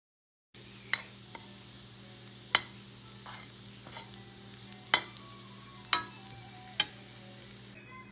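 Minced garlic sizzling in hot fat in a metal pan as it is stirred, with about five sharp clinks of the utensil against the pan. The sizzle stops just before the end.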